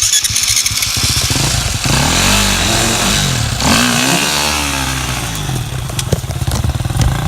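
An off-road vehicle's engine catches and is revved twice, its pitch climbing and dropping each time, then settles to a steady idle.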